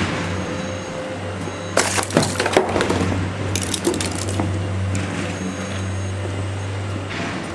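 Broken debris and tile fragments cracking and crunching underfoot on an old wooden floor. There is a cluster of sharp cracks about two seconds in, more around four seconds, and a steady low hum throughout.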